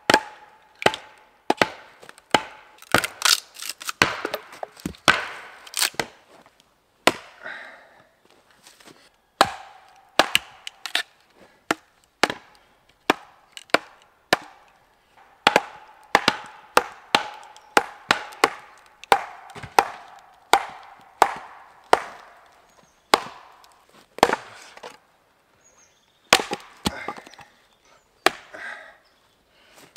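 Mil-Tec hatchet chopping into thick log rounds on a chopping block to split them: a long run of sharp wooden chops, roughly one a second, some coming in quick pairs, with brief pauses between runs. Many blows are needed because the rounds are thick and stringy.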